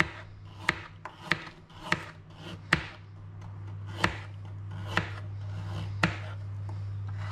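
Kitchen knife slicing a carrot into thick rounds on a plastic cutting board: a sharp knock each time the blade goes through and meets the board, about eight cuts, spacing out to about one a second. A steady low hum runs underneath, growing a little louder in the second half.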